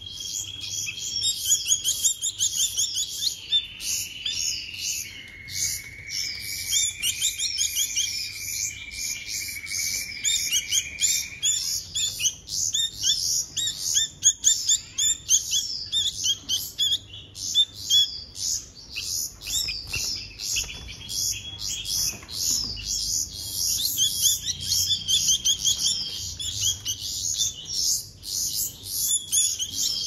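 Bulbul fledgling chirping rapidly and without pause, the high, insistent calls of a chick begging to be fed. A steady high thin tone runs under the chirps for the first ten seconds or so, dropping in pitch about five seconds in, and returns near the end.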